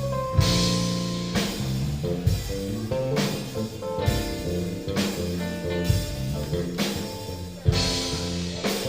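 Rock band playing live: guitar notes over a drum kit keeping a steady beat, with cymbal crashes.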